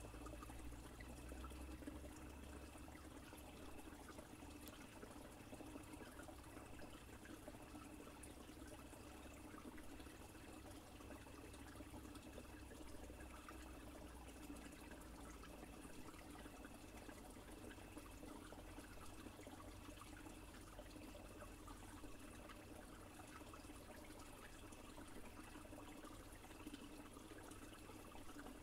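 Faint stream trickling and running steadily over stones, with a cricket chirping at an even pace, a little faster than once a second.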